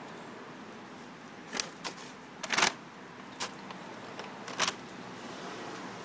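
Brown paper bag crinkling in five or so short crackles, the loudest about halfway through, as scraps of meat and fish are dropped into it, over a steady background hiss.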